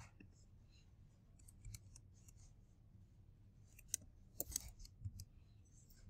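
Faint, scattered clicks of a computer keyboard and mouse, with a cluster of sharper clicks about four to five seconds in.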